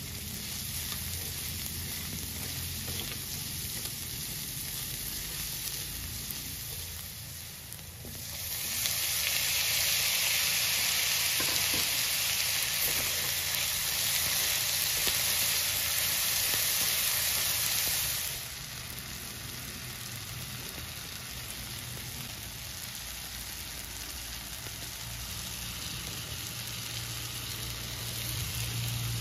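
Onions, garlic and tomatoes sizzling in hot oil in a wok as a spatula stirs them. About eight seconds in the sizzle turns much louder and hissier for about ten seconds, then drops back to a softer sizzle.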